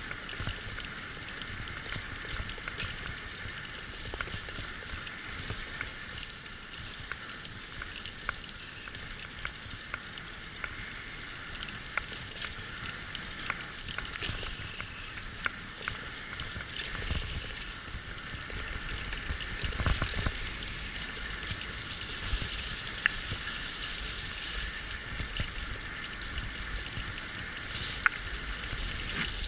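Steady crackling hiss of a sled-dog team and its rig moving along a trail, with scattered clicks and knocks and a couple of low thuds.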